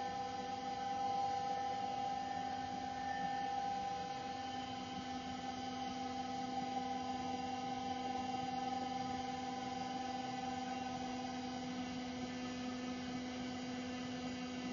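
Steady electric hum of a rotating powder mixer's drive as the bin slowly turns: one low tone with its overtones, unchanging throughout.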